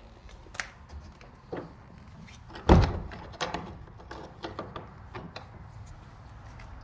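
A door being shut with one loud heavy bang about three seconds in, surrounded by smaller clicks and knocks of the door and its lock being handled.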